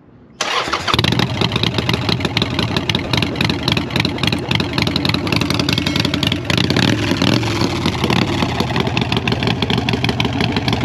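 A Harley-Davidson Iron 883 Sportster's 883 cc air-cooled V-twin runs through its heat-wrapped Vance & Hines exhaust. It comes in abruptly about half a second in and carries on pretty loud, with a rapid pulsing beat.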